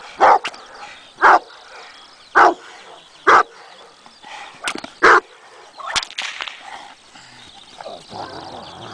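Large mastiff-type guard dog barking loudly and deeply about once a second while lunging on the leash at a protection-training decoy. The barking stops about six seconds in, after a few shorter sharp snaps.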